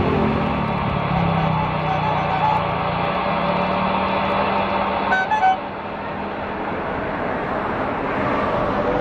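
Boeing 777-300ER's GE90-115B turbofans running at taxi thrust: a steady jet rumble and hiss. A short horn-like toot stands out about five seconds in.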